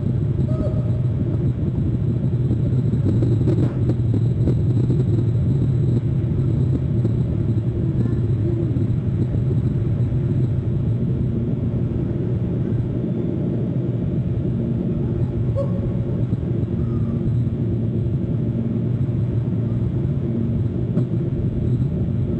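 Steady low outdoor rumble picked up by the nest camera's microphone, with a few faint short chirps here and there.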